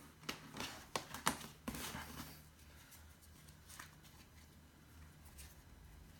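Sticker sheets and packaging being handled: several crisp rustles and taps in the first two seconds, then only a faint low hum.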